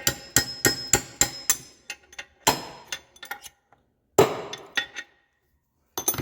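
Metal tool tapping and striking on a Kohler K321 engine while the oil seal is worked out, each sharp metallic hit ringing briefly. The hits come quickly, about three a second, for the first second and a half, then as a few single strikes with short pauses between.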